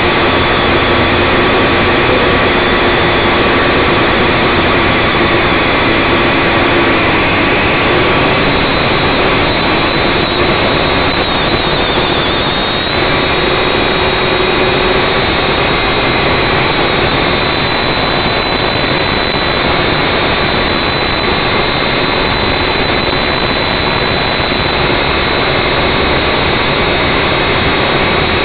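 Syma X5C quadcopter's four small brushed motors and propellers, heard up close through its onboard camera: a loud steady whine over a rush of noise. The pitch shifts slightly a little under halfway through as the throttle changes.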